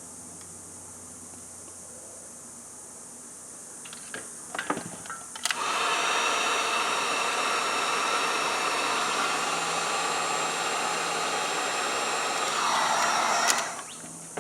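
Electric heat gun blowing hot air steadily to shrink adhesive-lined heat shrink tubing over a bullet connector. It switches on suddenly about five seconds in, runs for about eight seconds, and winds down near the end.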